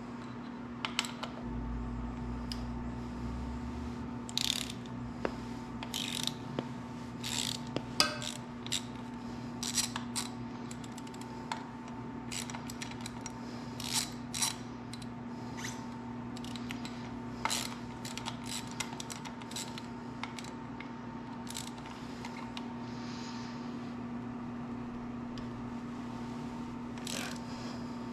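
A ratchet clicking in short irregular runs as a 6 mm Allen bit works the bolts at the bottom of a motorcycle's front forks, over a steady hum.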